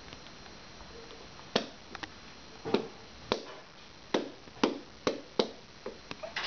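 A toddler's hand slapping and tapping a tablet screen in its case: about a dozen sharp, uneven taps, starting about a second and a half in.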